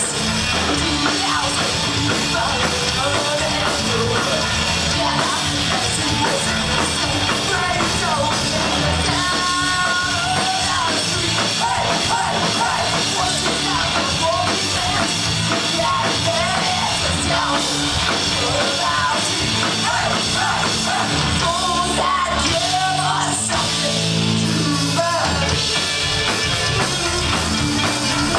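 Live rock music: a band with loud guitars and drums, a voice singing and shouting over it.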